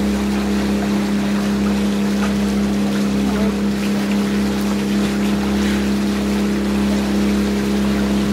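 Sailboat's engine running at a steady speed while motoring, a constant drone with a strong even hum, over a faint hiss of water along the hull.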